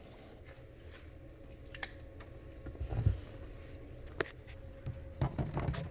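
Scattered light clicks and taps of kitchen handling, with a soft low thump about three seconds in, over a faint steady hum.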